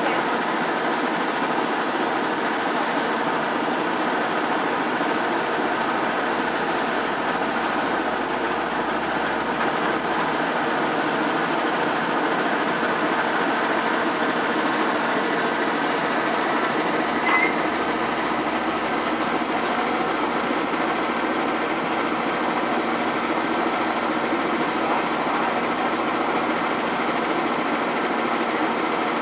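GO Transit bilevel commuter train standing at the platform, its machinery giving a steady mechanical drone with a hum of several steady tones. A faint click is heard about 17 seconds in.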